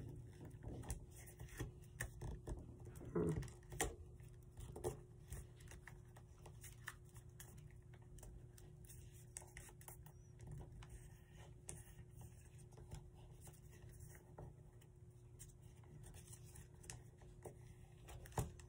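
Faint rustling and crinkling of origami paper being creased and folded by hand, with scattered small clicks.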